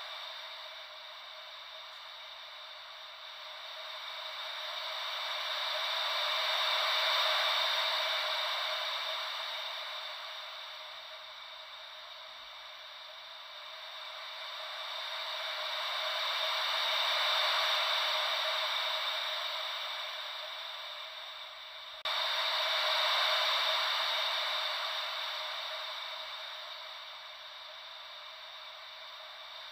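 Ocean-wave white noise: a thin hiss with no low rumble, slowly swelling and fading like waves washing in and out, about once every ten seconds. About three-quarters of the way through it jumps suddenly louder.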